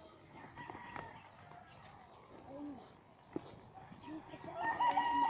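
A rooster crowing, loudest near the end.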